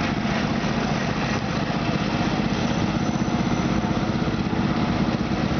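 John Deere garden tractor engine running steadily as the tractor drives slowly across grass.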